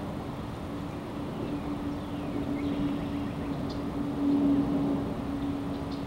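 A steady low hum and rumble runs throughout and swells briefly about four seconds in. Over it come a few faint, short, high chips from a red-winged blackbird.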